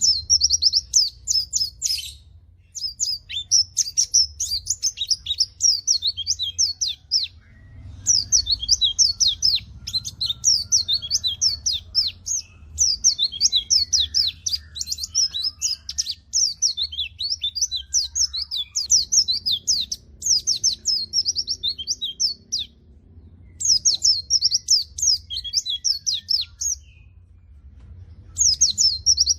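A white-eye (pleci) singing long, rapid, high-pitched twittering phrases, several seconds each with brief pauses between them.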